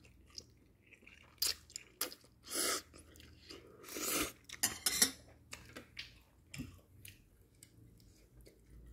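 Someone eating instant noodles from a stainless steel pot: chewing, with scattered clicks of metal chopsticks against the pot.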